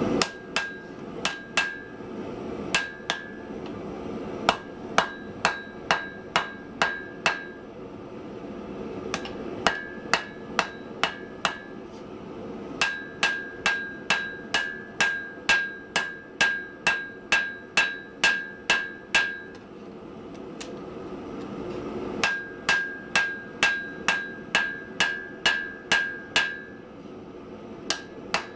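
Hand hammer striking hot steel on an anvil while forging and drawing out a small bar, about two blows a second, each with a short metallic ring. The blows come in four runs broken by short pauses, over a steady low rushing noise.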